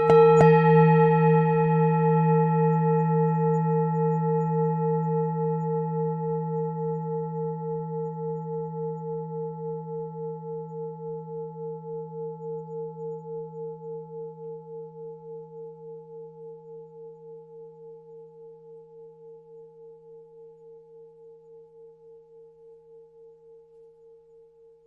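Tibetan singing bowl struck once, then ringing with a low hum and a clearer higher tone. The ring wavers in a slow, even pulse and fades gradually over about twenty-five seconds.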